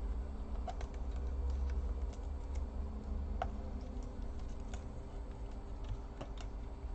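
Scattered light clicks and taps from small parts and tools being handled on an open laptop while its Wi-Fi antenna cables are refitted, over a steady low hum.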